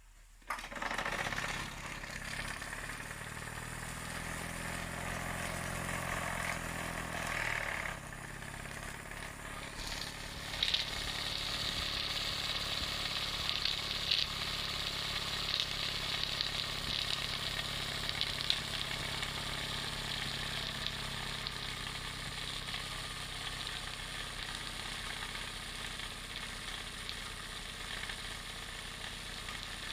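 Wilesco D16 toy steam engine running under steam, with a rapid mechanical beat and hissing steam. It starts suddenly with a steady running hum, which changes about eight seconds in. From about ten seconds in, a louder, steady steam hiss with scattered ticks takes over.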